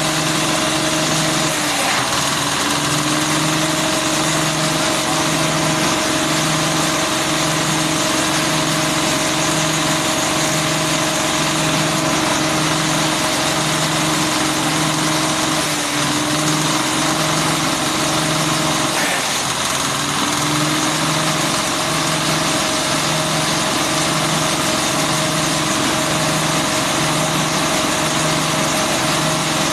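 Small single-cylinder diesel engine driving a grass chopper, running steadily with its chopper blades spinning. Its note sags briefly about three times as leaves and stalks are fed in.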